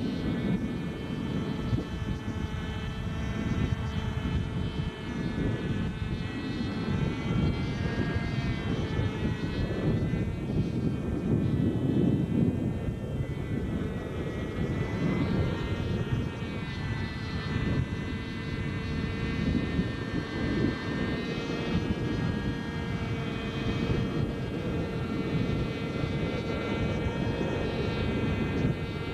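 Radio-controlled 550-size NOTAR model helicopter in flight, with no tail rotor: a steady high engine whine whose pitch wavers gently as it flies, over a low rushing rotor noise.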